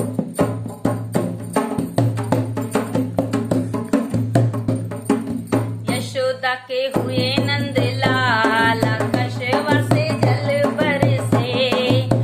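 Hand drum played in a quick, even folk rhythm, alone for about the first six seconds; then a woman begins singing a Hindi jachcha geet (birth song) over the drumming.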